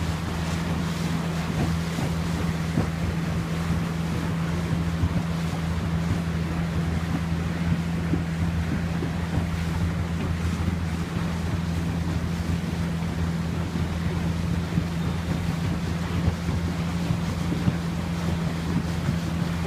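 Small boat motor running at a steady, unchanging pitch as an inflatable dinghy moves along a canal, with water rushing along the hull and wind buffeting the microphone.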